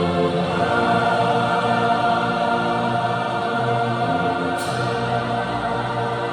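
A choir singing, holding long sustained chords that change every second or two.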